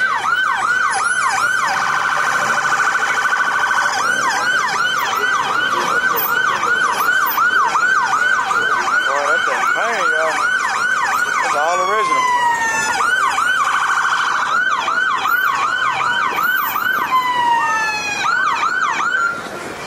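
Electronic siren sounding a fast yelp, about three sweeps a second, switching twice to a much faster warble and twice sliding down in a long falling tone.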